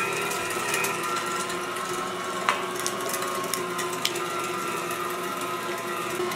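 Cabela's electric meat grinder running steadily with a motor hum while it grinds chunks of pork, with a couple of sharp clicks about two and a half and four seconds in.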